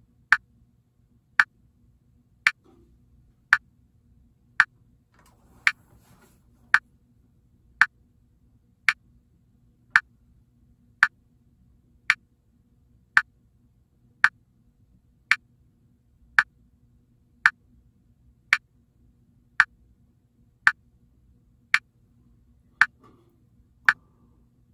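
Metronome click track ticking steadily, a sharp high click about once a second, with no instrument playing over it.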